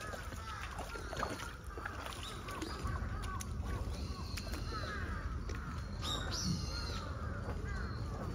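Water sloshing and splashing around the legs of a Malayan tapir as it wades through a shallow pool, with birds calling over it in short repeated notes and one brighter call about six seconds in.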